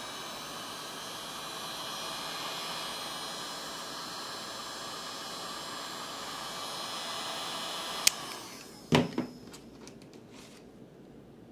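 Heat gun blowing steadily with a high whine, heating a phone's back glass to soften the adhesive. About eight seconds in it is switched off with a click and the blowing dies away, followed by a clunk and a few light taps.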